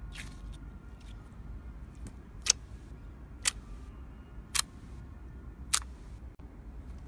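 Slime popping as it is handled: five sharp clicks about a second apart, over a low steady hum.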